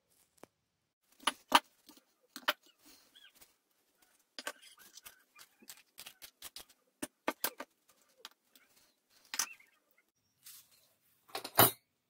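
A string of irregular clinks and knocks as a mesh sieve and a stainless steel mixing bowl are handled while icing sugar is sifted, with the loudest knock near the end.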